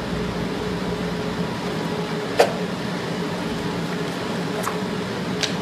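Continuous electromagnetic induction foil sealing machine running, a steady hum from its cooling fan and conveyor. A sharp click about two and a half seconds in, and two fainter clicks near the end.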